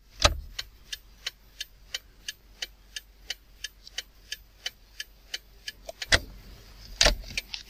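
Even, sharp ticking at about three ticks a second, which stops near the end and gives way to two louder hits about a second apart.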